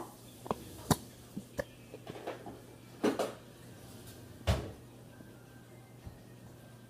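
Irregular knocks and taps, about eight of them, from the glue bottle, spoon and bowl being handled while making slime; the loudest come at the very start, about a second in and about four and a half seconds in.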